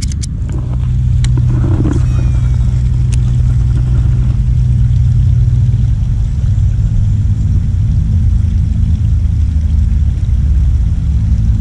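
Steady low mechanical rumble with a constant hum, like an engine or motor running nearby, holding level throughout. A few sharp clicks come in the first few seconds.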